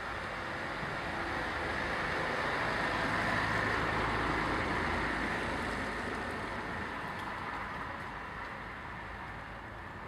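Noise of a passing road vehicle, swelling to its loudest about three or four seconds in and then slowly fading away.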